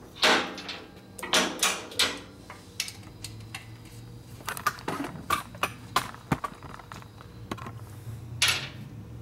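Hand tools and metal parts clinking, clicking and knocking during hands-on work on a motorcycle engine: an irregular series of sharp clanks, with a few louder scrapes near the start and near the end.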